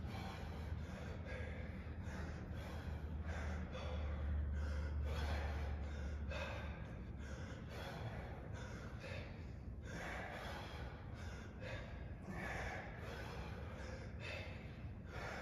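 Heavy, rhythmic breathing of people working hard through dumbbell and kettlebell thrusters, with hard breaths about once a second. A low hum underneath stops about six seconds in.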